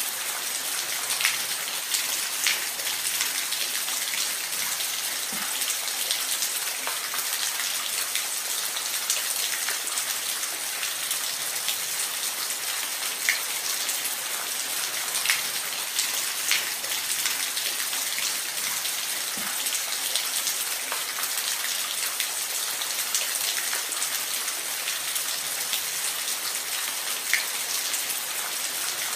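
Steady rain falling, an even hiss with individual drops ticking sharply on a surface every second or so.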